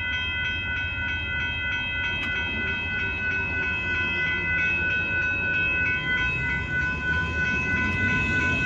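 Amtrak Texas Eagle passenger train rolling past with a steady low rumble. Over it, a set of steady high tones rings on unchanged, most likely the grade-crossing warning bell.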